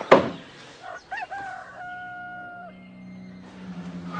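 A rooster crowing: a quick broken rise, then one long held note that stops sharply after about a second. There is a sharp click just before it, and a low steady tone comes in underneath about halfway through.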